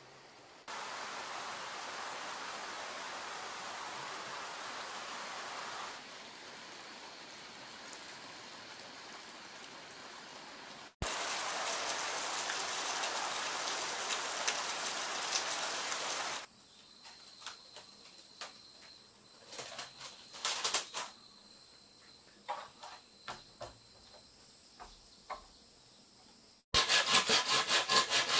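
A run of outdoor background sound: a steady hiss that gets louder about eleven seconds in, then a quieter stretch of insect sounds with scattered clicks and chirps. Near the end, a saw starts cutting through a green bamboo tube with quick, even strokes, the loudest sound here.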